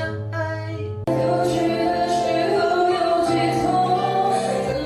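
A student singing a Chinese pop song with musical accompaniment. The music gets louder about a second in.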